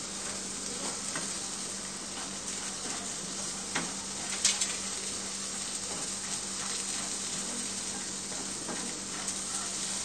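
Onion, tomato and roasted chana dal sizzling steadily in a frying pan over a high flame, while a wooden spatula stirs and scrapes through them with scattered clicks against the pan, the loudest a little after four seconds in.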